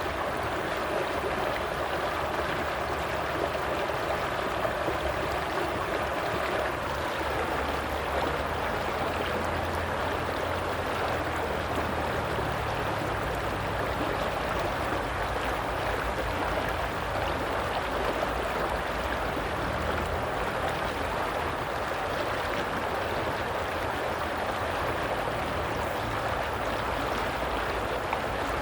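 A stream's water running steadily.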